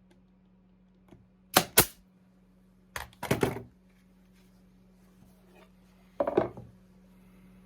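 Sharp knocks and clicks of wooden parts and tools being handled at a workbench: two quick sharp ones about one and a half seconds in, a short cluster about three seconds in and another near six seconds in, over a steady low hum.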